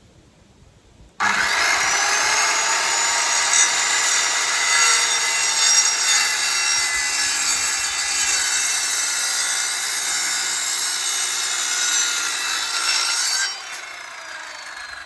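Electric power saw cutting through timber. It starts abruptly about a second in, runs for about twelve seconds with its pitch shifting under load, then stops and winds down near the end. The cut comes out crooked.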